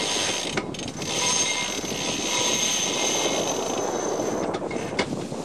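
Sailing yacht's winch hauling in a line, with a steady whine from about a second in until near the end, over wind on the microphone.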